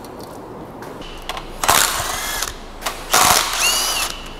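Cordless impact wrench undoing the oil pan bolts on a BMW N62 V8, in two bursts of about a second each with the motor whine rising and falling.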